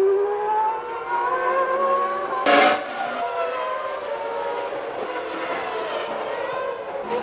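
Formula One cars' high-revving engines, their pitch rising and falling as they accelerate, shift and pass, with a short loud burst about two and a half seconds in.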